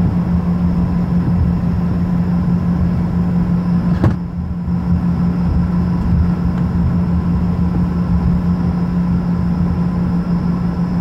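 Steady drone inside an airliner cabin from the jet engines running at taxi power, with a steady low hum throughout. One sharp click about four seconds in.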